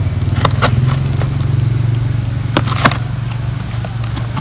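A steady low engine rumble from a motor vehicle runs throughout. Over it come a few sharp clicks and snaps from a blade cutting the packing tape on a cardboard box, two about half a second in and two a little past halfway.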